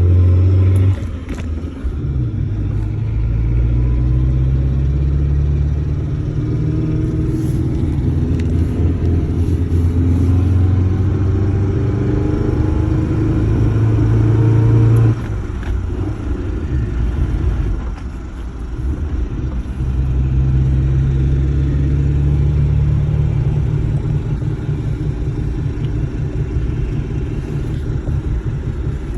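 Suzuki Sidekick running in 4H with both front hubs unlocked, giving the strange drivetrain noise under test. It makes a drone that climbs in pitch, drops suddenly about halfway, then climbs again.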